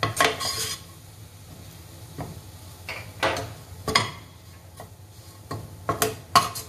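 A spoon stirring and scraping a thick gram-flour and spice masala as it roasts in a pressure pan, in separate scraping strokes every second or two with quieter gaps between.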